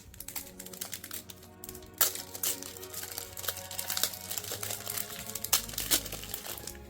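Plastic trading-card pack wrapping crinkling and crackling as it is handled and opened, over background music.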